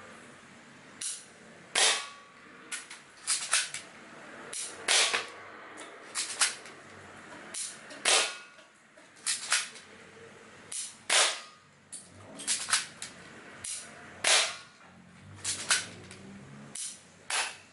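Airsoft gun firing a rapid string of BBs at an aluminium beer can: about two dozen sharp pops at irregular intervals, the can denting as it is hit.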